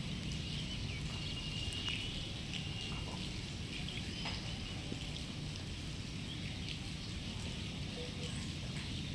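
Birds chirping, with short high whistled notes that are busiest in the first few seconds, over a steady low background hum.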